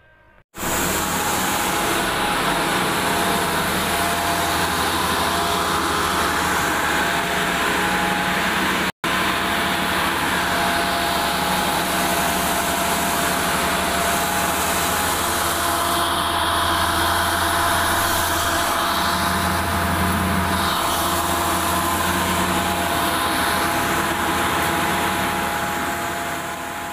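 Electric motor running a belt-driven machine, a loud steady mechanical hum and whirr with a brief dropout about nine seconds in.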